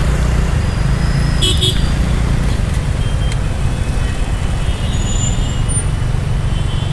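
Slow city traffic heard from a scooter rolling between cars: a steady low rumble that the rider suspects is mostly wind noise on the microphone. A vehicle horn gives a short double toot about a second and a half in, and fainter horns sound later.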